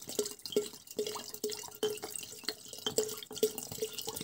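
Vodka glugging out of an upended bottle into a glass jar of blueberries, a steady run of about two to three glugs a second as air bubbles back into the bottle: pouring the spirit over the berries for a blueberry liqueur.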